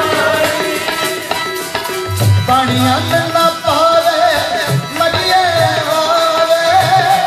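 Sikh kirtan music: tabla playing a steady rhythm under an ornamented, wavering melody line from harmonium and voice.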